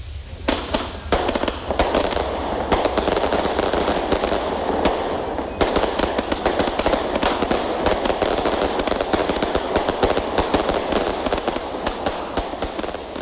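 A battery of firework tubes on a wooden plank, set off by a burning fuse, firing a dense, rapid volley of bangs and crackles that starts about half a second in and runs on without a break.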